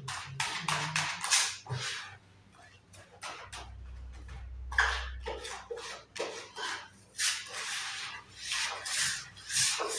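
Short scraping strokes on wood, coming in irregular runs, with a brief pause a few seconds in.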